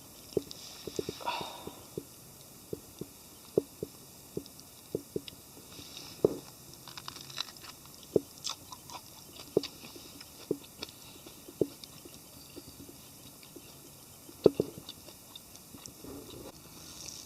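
Campfire wood crackling, with irregular sharp pops and snaps about once a second over a faint hiss.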